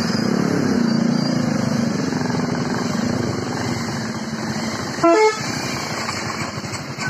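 Motorcycle engines running at low speed, with one short vehicle horn beep about five seconds in, the loudest sound.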